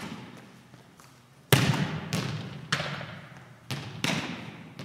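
Volleyballs being struck and bouncing, a string of about six sharp smacks that ring out in a gymnasium, the first and loudest about a second and a half in.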